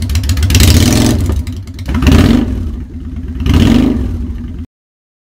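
Honda Shadow Spirit 750's V-twin running through Vance & Hines Straight Shots exhaust, revved in about four quick throttle blips over a steady idle. The exhaust is heard first as open straight pipes and then with quiet baffles fitted. The sound cuts off suddenly near the end.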